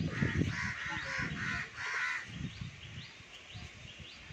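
Birds calling: a run of about five harsh, evenly repeated calls in the first two seconds, with short rising chirps from smaller birds throughout.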